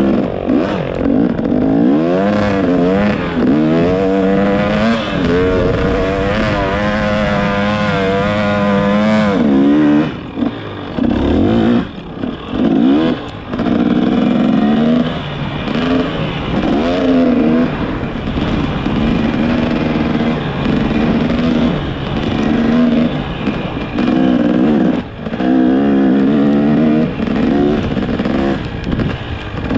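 Motorcycle engine running under way, its pitch climbing and dropping again and again as it revs up and eases off, with one long held climb about halfway through.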